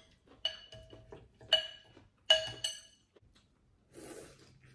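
Eating utensils clinking against a bowl of pho: four sharp, ringing clinks, the last two close together. A brief soft hiss follows about four seconds in.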